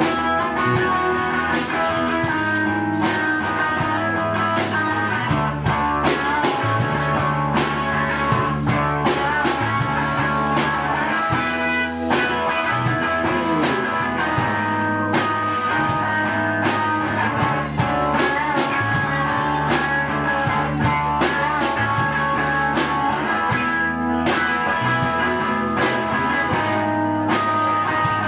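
Small rock band playing live, instrumental: electric guitar over a drum kit, with cymbals keeping a steady beat.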